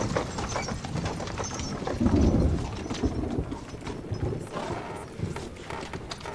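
Horse hooves clip-clopping at a walk, with a louder low rumble about two seconds in.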